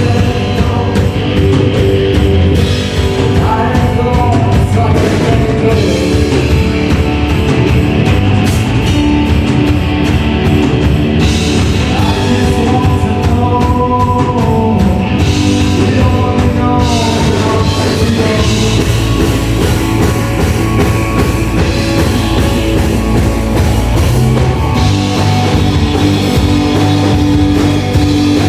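Rock band playing live: drum kit, guitar and a singing voice in a steady, loud song.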